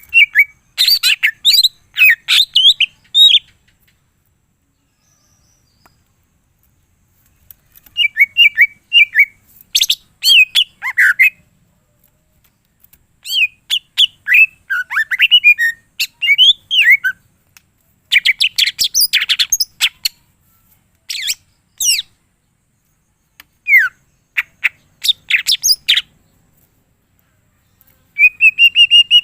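Green leafbird (cucak ijo) singing in loud bursts of rapid, sweeping whistles and chirps, with pauses of a few seconds between phrases. The song is full of varied 'isian', the other birds' calls that the leafbird mimics.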